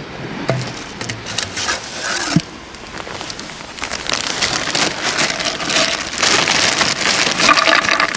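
Clear plastic bag crinkling and rustling as it is handled, louder and denser from about four seconds in, after a few short handling knocks.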